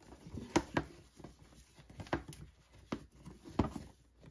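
Hands tying a satin ribbon around a cardboard gift box: soft rustling of the ribbon with a handful of light, sharp knocks and taps against the box.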